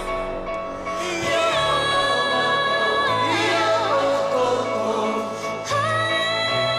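Live pop song: a woman and two men singing together over a band backing, holding long notes.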